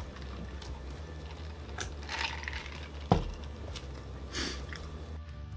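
Light clicks and rustles of fast-food packaging and a plastic cup handled on a tabletop, with one sharper knock about three seconds in.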